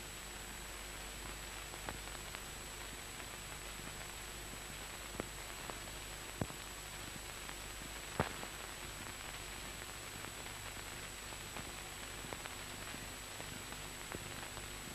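Steady hiss of an old film soundtrack, with a thin high-pitched whine and a faint low hum, broken by a few faint clicks, the clearest about eight seconds in.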